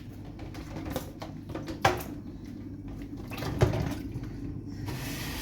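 Small items and their packaging being handled: rustling, with a few sharp knocks, the loudest about two and three-and-a-half seconds in, and a longer rustle near the end.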